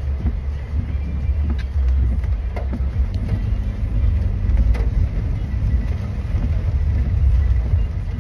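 Steady low rumble of a car heard from inside the cabin, with a few faint ticks scattered through it.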